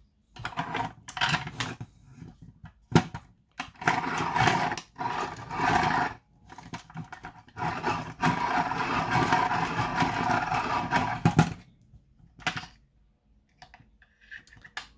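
Hand-cranked rotary pencil sharpener grinding a wooden colour pencil, in three spells of cranking with short pauses between them. A sharp click comes about three seconds in and another near the end.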